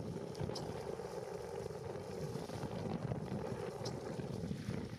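Steady rushing roar of river rapids, with wind buffeting the microphone. Two brief faint high notes sound over it, about half a second in and again near four seconds.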